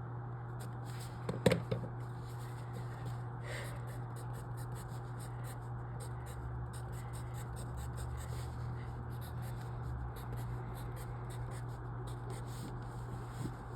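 Scratchy writing strokes as entries are marked in a logic-puzzle grid, over a steady low hum. A single sharp knock sounds about a second and a half in.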